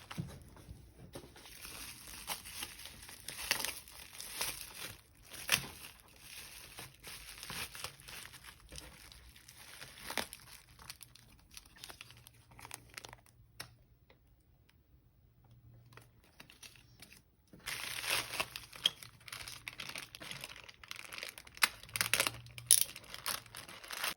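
Packaging crinkling and tearing as merchandise is unwrapped by hand: irregular rustles and sharp crackles. A quieter stretch comes about midway, and then the handling picks up again.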